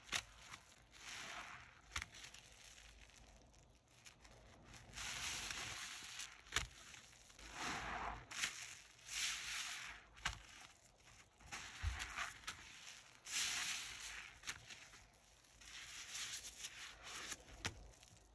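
Soap-soaked kitchen sponge being squeezed and lifted in thick sudsy foam: a series of wet squishes and crackling suds, with sharp little pops in between.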